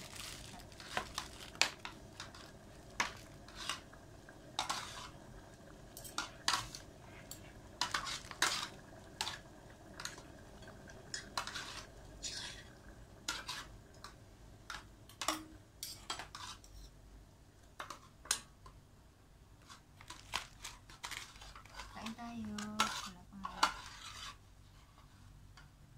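Metal spoons and forks clinking and scraping against a stainless steel pot and a metal tray of noodles as food is scooped and served: irregular sharp clinks all through.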